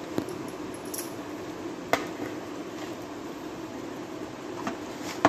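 A few light clicks and taps as brinjal slices are handled on a steel plate to rub in the spice, over a steady low background hum.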